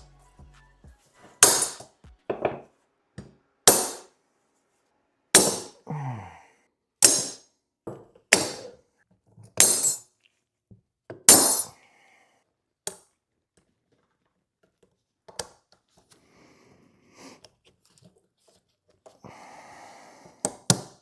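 Sharp metal clinks and knocks, about nine of them spaced a second or so apart, as a snap ring is worked into its groove to hold a turbocharger's center cartridge in the housing. After that come only faint small clicks.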